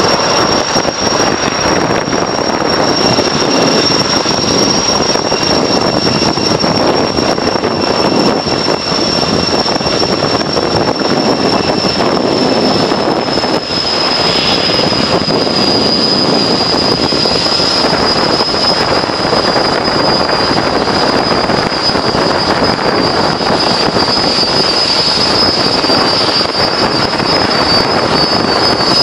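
Erickson S-64 Air-Crane heavy-lift helicopter running loud and steady as it hovers and sets down: twin turboshaft engines and main rotor. A high turbine whine sits over the rotor noise and slowly drops a little in pitch.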